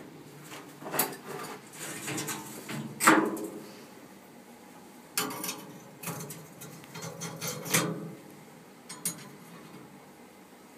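Irregular metal clanks and knocks from handling a centrifugal casting machine's steel tub and arm while the casting flask is gripped with tongs. About half a dozen sharp knocks, the loudest about three seconds in.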